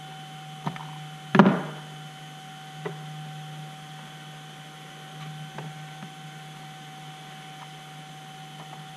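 Small red-handled wire cutters nipping the insulation off the end of a thin wire: one sharp snip about a second and a half in, followed by a few light clicks as the wire is handled. A steady electrical hum runs underneath.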